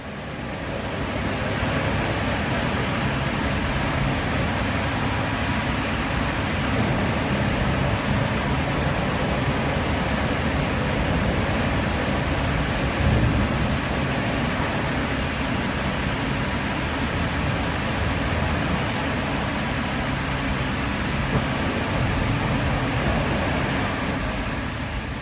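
Steady sawmill machinery noise in the primary sawing line, a dense mechanical rumble and rush with a brief louder bump about halfway through. It fades in at the start and fades out near the end.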